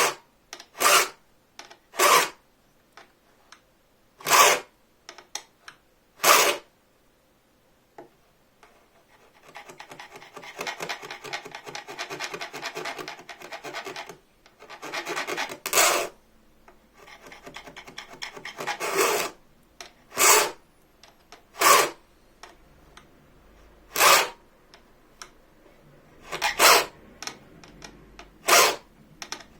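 Hand file cutting teeth into a bow-saw blade: single rasping strokes, mostly a second or two apart. In the middle comes a stretch of quieter, continuous rapid rasping.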